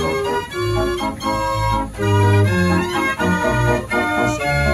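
52-key Verbeeck street organ playing a tune from punched cardboard book music, its pipes sounding a changing melody over low bass notes.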